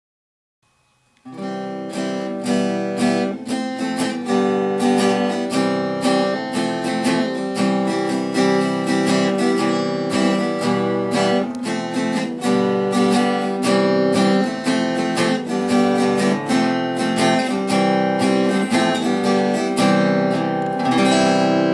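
Background music of a strummed guitar, starting about a second in after a brief silence and going on steadily with even, regular strokes.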